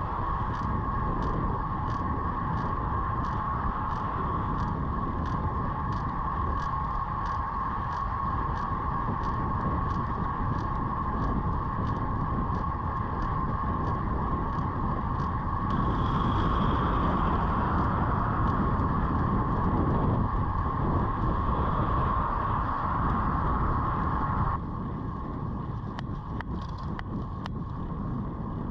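Road bike being ridden over steady road and wind noise, with a sharp click repeating about twice a second, in time with the pedal strokes: the abnormal noise from the crank area. The clicks fade out a little past halfway, and the background drops in level near the end.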